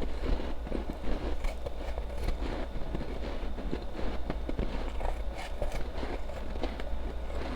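Close-up chewing and crunching of powdery ice, a steady run of many quick, irregular crunches and crackles.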